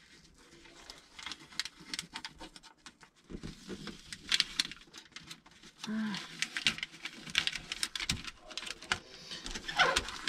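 Backing paper being peeled off self-adhesive decorative foil: a dense run of small crisp crackles and rustles as the liner separates from the adhesive, exposing a strip of the sticky side.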